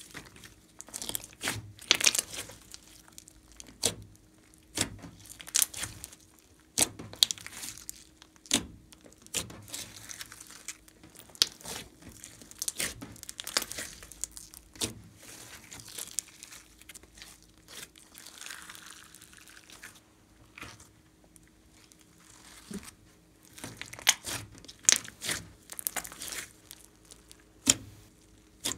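Glossy slime with clay mixed in, squeezed, pressed and stretched by hand, giving irregular sticky crackles and pops in clusters.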